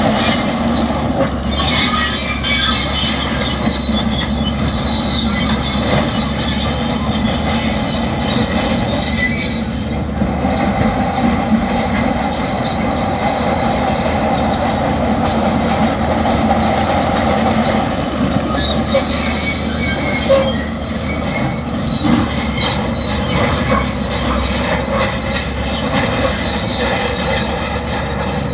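Crawler bulldozer working, its diesel engine running steadily under a continuous grinding from the steel tracks. A high squeal comes and goes, strongest about two seconds in and again a little before the twenty-second mark.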